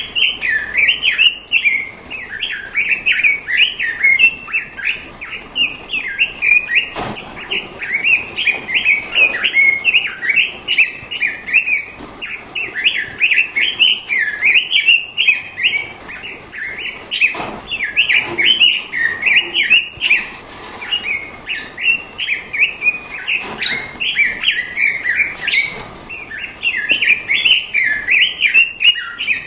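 A songbird singing a continuous run of rapid, warbling phrases that bend up and down in pitch, with a few sharp clicks scattered through.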